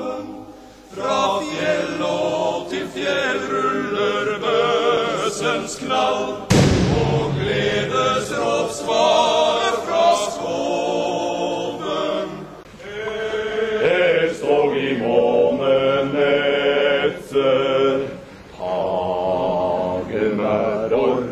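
Men's choir singing, with short breaks between sung passages and one sharp hit about six seconds in.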